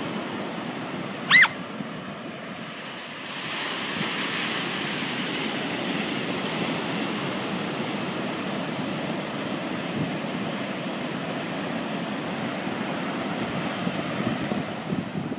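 Ocean surf breaking and washing up a sandy beach, a steady rushing hiss that swells about three seconds in. About a second and a half in, one brief high-pitched chirp stands out louder than the surf.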